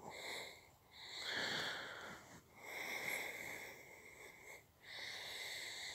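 A person breathing close to the microphone: about four slow, slightly wheezy breaths with short pauses between.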